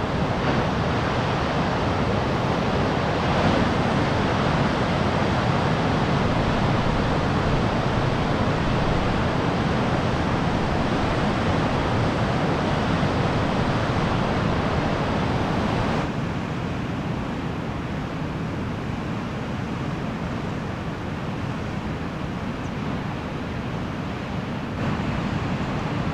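Big ocean swell breaking heavily over a shallow rock slab: a steady rush of surf. It drops a little about sixteen seconds in and rises again near the end.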